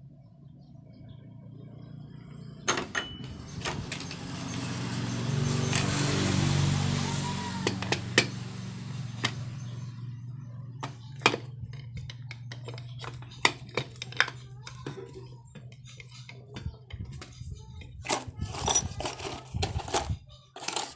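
A motor vehicle passing, swelling to its loudest about six seconds in and fading away, over a low steady hum. Scattered metallic clicks and taps of small engine parts being handled follow, coming thick and fast near the end.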